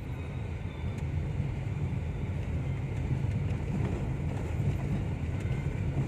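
Steady low road and engine rumble inside a moving Toyota Wigo hatchback's cabin, with no dashboard rattle: the rattle has been fixed.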